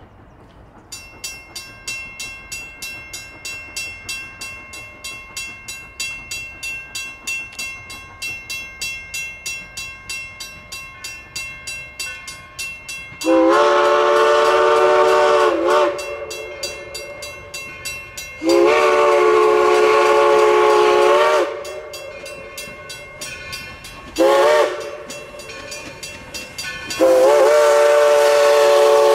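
Grade-crossing bell dinging in a steady, rapid rhythm as the crossing activates. Over it a steam locomotive's chime whistle blows the crossing signal: two long blasts, a short one, and a final long one starting near the end.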